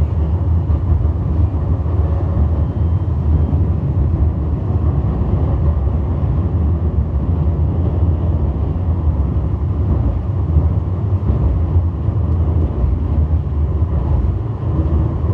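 Steady low rumble of a Metro Sul do Tejo light-rail tram running along its line, heard from inside the passenger cabin.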